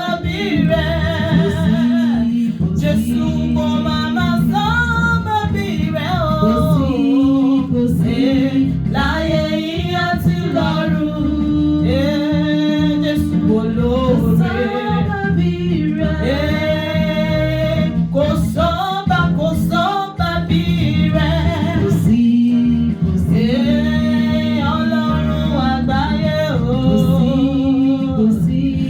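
Worship song: singing with instrumental backing that includes guitar, a melody line gliding and wavering over steady low accompaniment.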